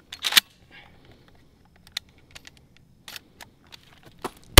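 Sharp metallic clicks and clacks from handling and loading a Remington 870 pump-action shotgun, louder a fraction of a second in and fainter after that, then one very loud shotgun blast right at the end.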